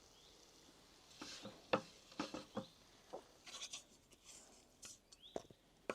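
Faint, scattered scrapes and light taps of food and utensils being handled while the fried mushrooms and potatoes are served up.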